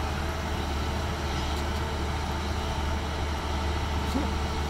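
Diesel engine of a Hyundai 210 crawler excavator running steadily with a deep, even drone.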